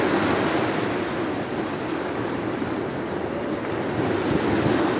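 Sea surf breaking and washing up the sand in a steady rush that swells a little near the start and again near the end, with wind rumbling on the microphone.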